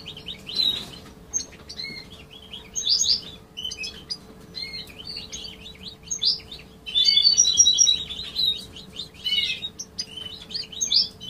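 Major-type European goldfinches twittering and singing: quick runs of high chirps and trills in clusters, busiest around seven to eight seconds in. The birds are in breeding condition.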